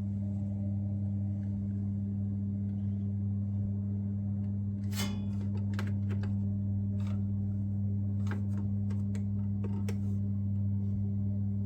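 Steady low electrical hum of a motor in the Ideal boiler, with a handful of sharp clicks and taps from about halfway through.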